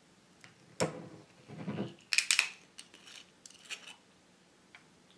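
Screw cap being twisted off a glass bottle of lingon glögg: a click about a second in, then a short crackle of sharp clicks about two seconds in as the seal breaks, followed by a few lighter clicks.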